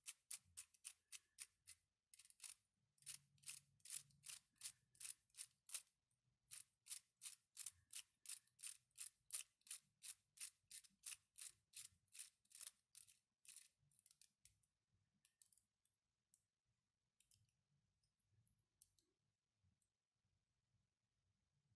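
3D-printed plastic mechanical counter clicking as it is turned by hand: sharp, light clicks about three a second, with a short gap about six seconds in, thinning to a few scattered clicks after about 14 seconds and then stopping.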